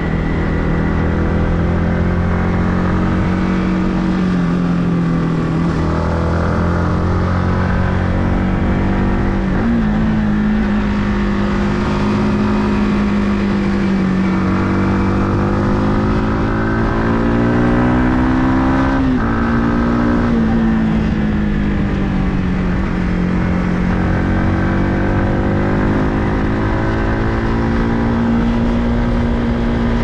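Yamaha MT-15 V2's single-cylinder engine running under way, its note rising and falling with the throttle and jumping abruptly in pitch twice, about a third and two-thirds of the way in, over a steady rush of noise.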